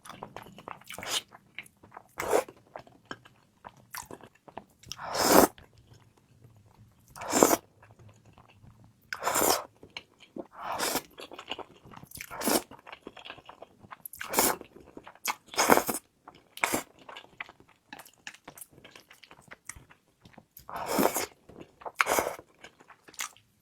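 A person biting and chewing crunchy food close to the microphone, with loud crunches coming irregularly, one every one to three seconds.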